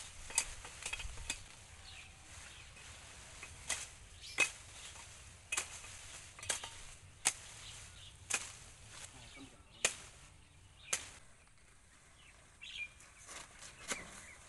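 A curved blade chopping through leafy branches and stems: about a dozen sharp cracks, roughly one a second, with a quick cluster near the end.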